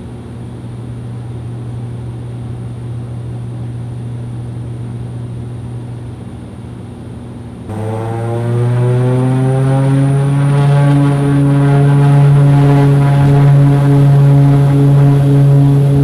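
Cockpit sound of a C-145A Combat Coyote's twin turboprops, a steady drone in flight. About halfway through, a cut to the runway, where the engine and propeller note rises in pitch and grows much louder as power comes up, then holds steady and loud, typical of the start of a takeoff roll.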